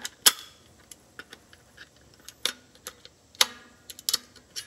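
Irregular sharp metallic clicks and taps, a few with a brief ring, the loudest about a quarter second in. They come from pliers and a coil spring knocking against metal parts as the spring is hooked back onto a Can-Am Smart-Lock front differential's ball-and-ramp clutch assembly.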